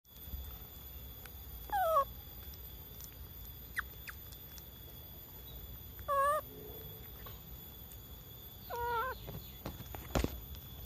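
Three short, wavering monkey calls, one about two seconds in, one about six seconds in and one about nine seconds in. The first slides down in pitch. A few faint clicks and a knock near the end come between them.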